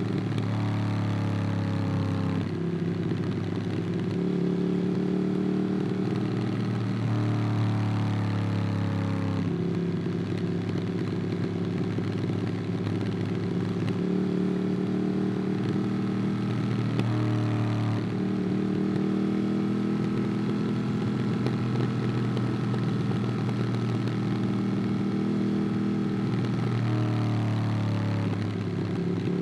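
Ducati Monster 821's L-twin engine through a QD Twin Gunshot aftermarket exhaust, heard onboard while riding. The engine pitch rises and falls several times as the throttle opens and closes through the gears.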